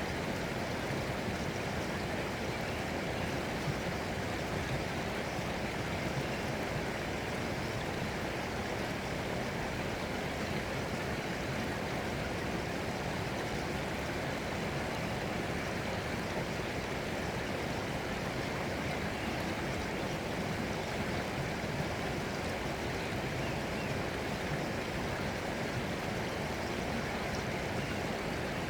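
Flowing water with a steady, even rush and no breaks.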